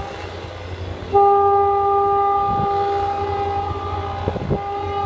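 Train horn sounding a long, steady single-note blast over a low rumble. It starts sharply about a second in, breaks off briefly near the end and then sounds again.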